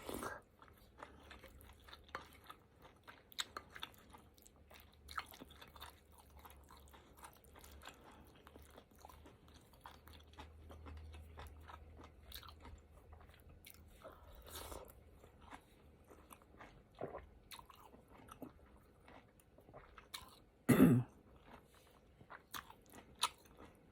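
A person chewing and eating rice cakes and tofu puffs in soup: close wet mouth sounds and many small chewing clicks. One louder, brief sound comes near the end.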